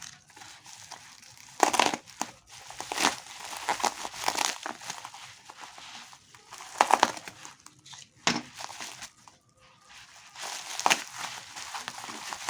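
Plastic packaging crinkling and rustling as it is handled and unwrapped, in uneven bursts with a few sharper crackles.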